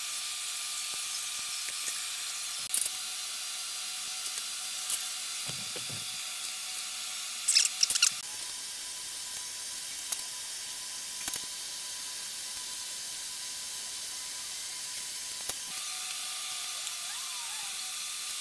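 A steady hiss with a few light metallic clicks and taps from mill-drill parts being handled and fitted, the loudest pair of clicks about halfway through.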